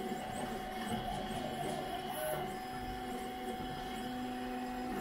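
V-King CoreXY 3D printer printing at 100 mm/s: its stepper motors whine at pitches that shift as the print head darts about, over a steady hum.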